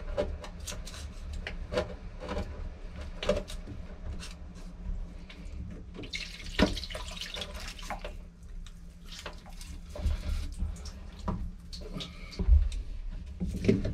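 Hands unscrewing threaded plastic hose fittings from a boat's 12 V live well/washdown pump, with scattered clicks and knocks. Water trickles out of the loosened hoses around the middle.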